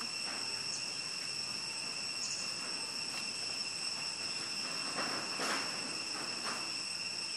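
Steady high-pitched chorus of insects, several shrill tones held without a break, with a few brief noisy scuffs about five seconds in.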